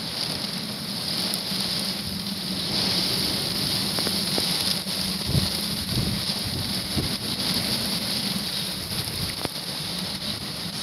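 Hurricane wind gusting and rain falling, the wind buffeting the microphone with a low rumble and swelling stronger a few seconds in, with scattered sharp ticks.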